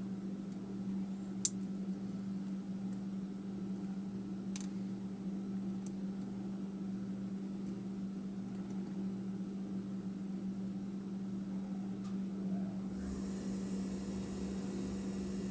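Steady low hum, with a few faint, sharp clicks of a lock pick working the pins of an American 5200 padlock; the clearest click comes about a second and a half in. A hiss joins the hum near the end.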